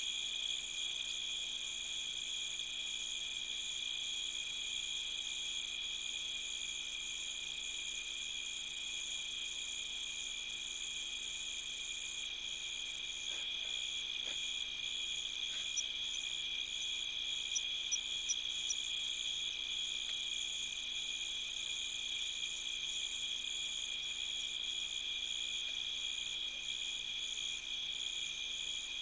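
Crickets and other night insects calling in a steady, continuous chorus at several high pitches, the highest one pulsing rapidly.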